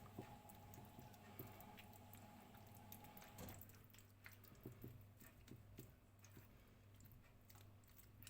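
Faint wet squishing and light scattered taps of a spoon spreading a creamy chicken-and-vegetable mixture over fried potatoes in a baking dish, over a low steady hum that partly stops about a third of the way in.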